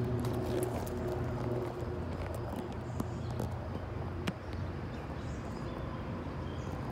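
Steady low machine hum, strongest in the first couple of seconds, with a couple of light knocks from the phone being handled.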